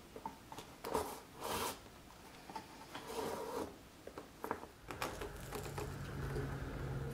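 Thread drawn through saddle leather while hand saddle-stitching, making a zipping rasp twice, about a second in and again near the middle, with small clicks of the needles and leather between the pulls. A low steady hum comes in about five seconds in.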